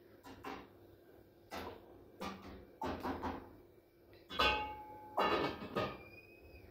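Metal ladle knocking and scraping in an aluminium cooking pot: a series of short clatters. In the second half the aluminium lid is handled and set on the pot, with a couple of louder metal clanks that ring briefly.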